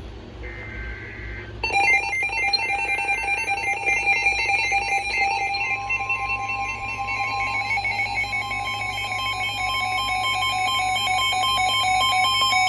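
Emergency alert tones from a weather radio: a short burst of warbling data tones, then an electronic alarm trilling rapidly between two pitches, joined about six seconds in by a steady single-pitch warning tone. These tones announce a new weather warning about to be read.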